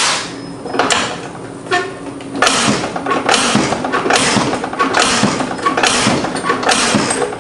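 Plastic zip tie being ratcheted tight around a lawn mower's operator-presence bail lever and handle, a run of short rasping zips about two a second, to hold the lever down.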